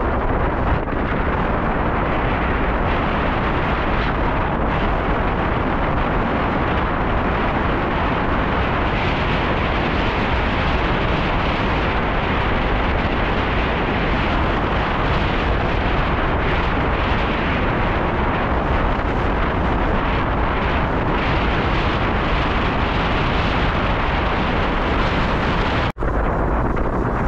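Wind buffeting the microphone of a rider on a moving bicycle: a loud, steady rush of rumbling noise. It breaks off for an instant near the end.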